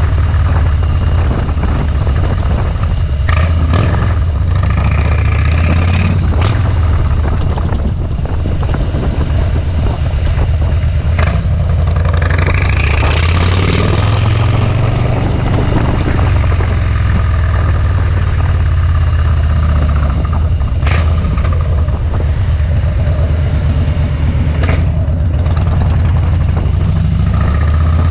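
Harley-Davidson Softail Deluxe V-twin running through Vance & Hines Straight Shots slip-on mufflers while riding, a loud steady low rumble. A few short knocks are heard here and there.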